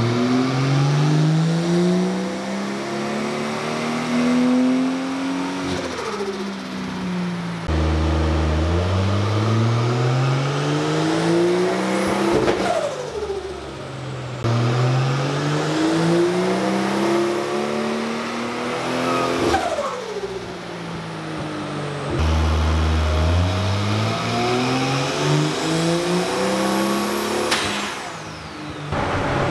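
Turbocharged Nissan RB30 straight-six in a 180SX doing four full-throttle dyno pulls in a row. Each pull climbs steadily in pitch for several seconds, then the revs fall away with a descending turbo whistle.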